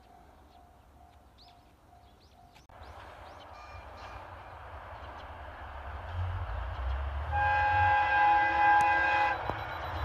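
Kyoto Tango Railway train approaching with a steadily rising rumble, then sounding its horn in one long blast of several tones together, about seven seconds in and lasting about two seconds. Birds chirp and a regular ding at about two a second stops in the first few seconds.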